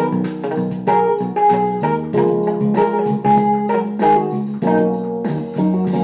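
Background music played on keyboard instruments, an organ-like sound with piano, notes changing every fraction of a second.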